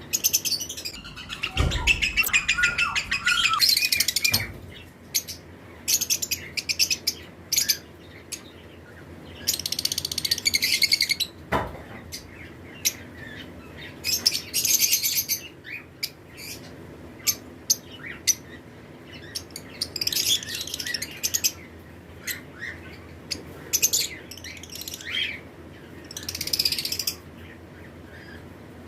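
A flock of lovebirds chirping in a flight colony: bursts of rapid, high-pitched chirps and chatter that come and go every few seconds, the busiest stretch about a second in.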